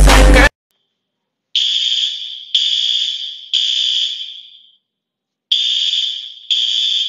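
Loud music cuts off half a second in, then a fire alarm sounds in the three-beep evacuation pattern: three high beeps a second apart, a short pause, then three more.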